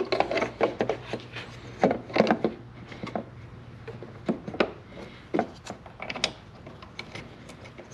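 Irregular light clicks, taps and rubbing of hard plastic on plastic as a plastic mounting bracket is fitted against a headlight housing, coming in small clusters.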